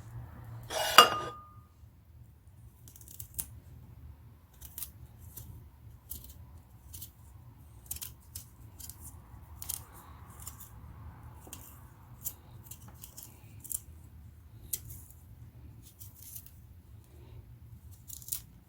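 Fresh ginger root being peeled by hand: a run of short, crisp scraping strokes at an irregular pace, one or two a second. About a second in, a single loud clatter with a brief ring.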